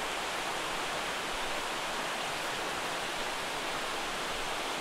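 Steady rush of a river flowing over rocks, an even hiss with no changes.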